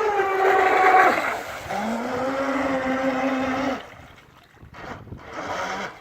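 Motor whine of a Robbe Sea Jet Evolution radio-controlled model jet ski under throttle. It is steady, drops out briefly a little over a second in, picks up again and holds, then cuts back about four seconds in, with one short blip near the end.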